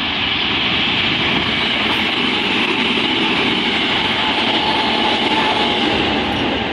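Hanshin Railway train passing over a level crossing: a steady, loud rumble and hiss of wheels on rail that swells in the first second.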